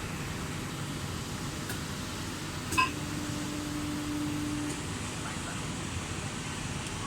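CNC hydraulic busbar bending machine running with a steady hum. A sharp click comes nearly three seconds in, followed by a steady low tone that holds for about two seconds and then stops.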